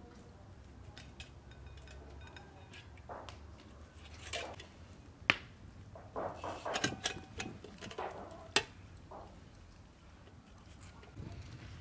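Metal skewers clinking and scraping against a metal tray while a raw chicken and potatoes are pushed onto them. Softer handling noises run through the middle, with two sharp clicks about three seconds apart.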